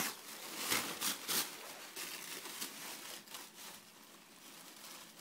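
Gift bag rustling and crinkling as a present is pulled out of it, with a few louder rustles in the first second and a half, then softer scattered crinkles.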